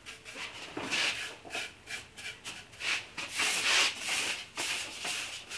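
A brush laying wood stain onto bare pine boards: a run of irregular, scratchy swishing strokes of the bristles on the wood, about one or two a second, some longer and louder than others.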